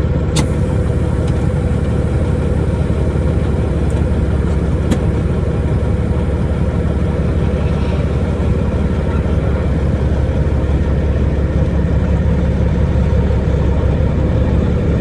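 Caterpillar diesel engine of a semi truck heard from inside the cab, running steadily with a low drone while pulling a loaded trailer. Two short sharp clicks sound just after the start and about five seconds in.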